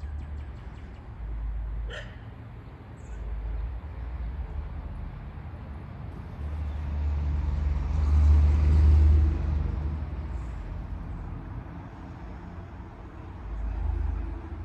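Outdoor ambience with wind rumbling on the microphone in uneven gusts. A vehicle passes on a nearby road, swelling to its loudest a little past the middle and then fading.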